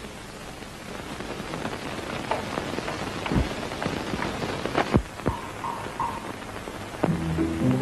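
Steady hiss of an old film soundtrack with a few dull thumps in the middle, like footsteps on carpeted stairs. Near the end, music with low bass notes begins.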